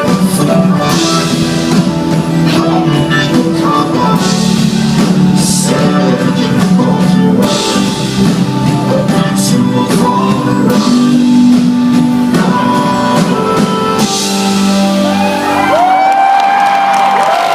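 A live rock band playing the closing bars of a song: held chords with repeated cymbal crashes. Near the end the band falls away and a loud whistle from the audience comes in as the cheering starts.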